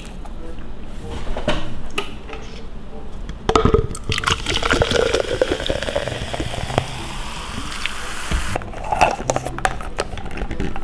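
Orange Fanta poured into a glass for about five seconds, fizzing, the pitch of the pour rising as the glass fills. A knock comes just before the pour.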